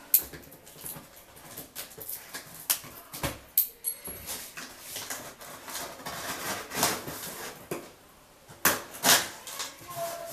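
A knife and then scissors cutting the packing tape along the top seam of a large cardboard box: irregular scraping, rasping cuts and small clicks, a short pause about eight seconds in, then two louder cuts.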